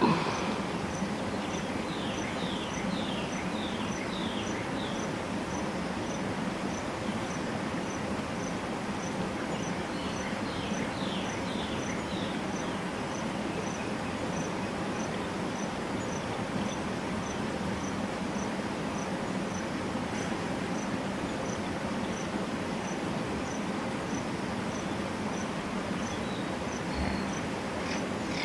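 Outdoor wildlife ambience: an insect chirping steadily about twice a second over an even background hiss, with a run of short falling notes heard twice.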